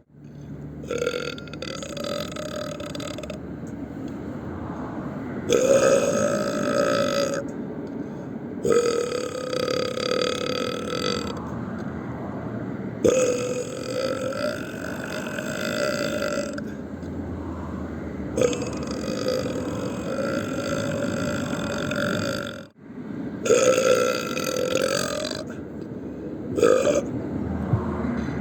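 A string of long, deliberate burps, about seven in a row, each drawn out for one to three seconds with short gaps between.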